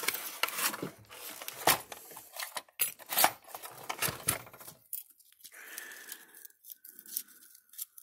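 Loose thin metal transformer core plates from a fence energizer clicking, clattering and scraping against each other and the transformer as they are handled by hand. The clicks come thick and fast for the first five seconds, then thin out into softer scraping.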